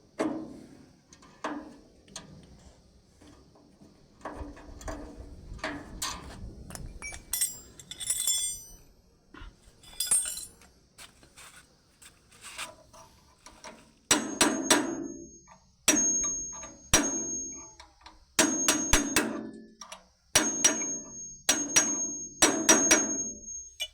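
Hammer blows on the metal parts of a chaff cutter: scattered knocks at first, then from about halfway in, runs of quick strikes that ring with a high metallic tone, struck while working loose a broken part.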